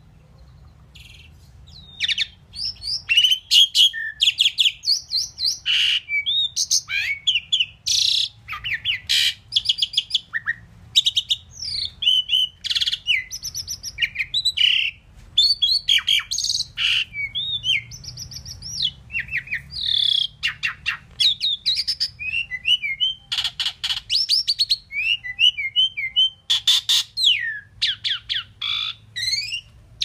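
Asian pied myna singing a rapid, varied jumble of whistles, chirps and harsh buzzy notes. It starts about two seconds in and goes on almost without a break.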